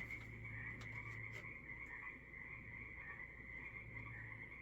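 A faint, dense chorus of frogs calling, many overlapping trilling calls blending into a steady high-pitched mass, with a low steady hum beneath and a few light clicks about a second in.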